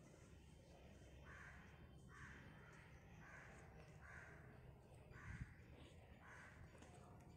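Crows cawing faintly and repeatedly, about one call a second, with a brief low thump about five seconds in.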